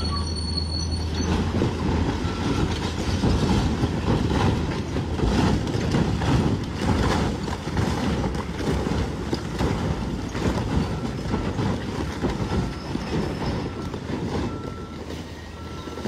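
A long two-storey concrete-frame building collapsing section after section: a continuous crashing of falling concrete slabs and masonry with many impacts. It starts about a second in, is loudest in the first half and eases off toward the end.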